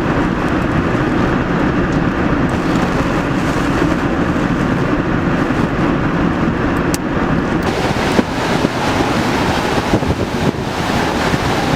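Hurricane wind and rain: a loud, steady rush of noise, with wind buffeting the microphone.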